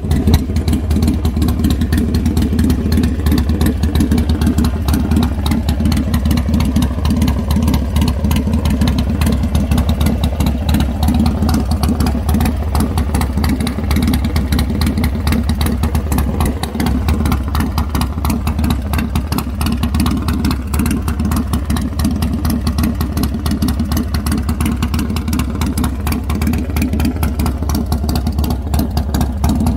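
Buell-based custom chopper's engine idling steadily, a loud even low-pitched running with a rapid regular pulse.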